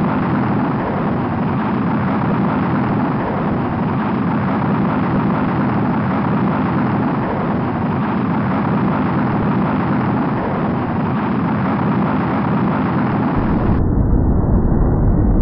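Rocket launch: the engines' continuous heavy rumble during liftoff. Near the end the sound turns duller, with a deeper bass.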